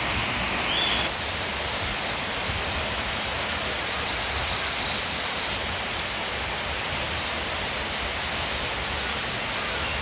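Rushing water of a mountain stream, a steady even hiss, with a few faint high whistles over it.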